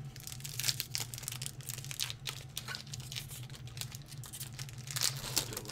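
Foil Pokémon TCG booster pack wrapper crinkling in the hands, with scattered crackles that are loudest about half a second in and again near the end, over a low steady hum.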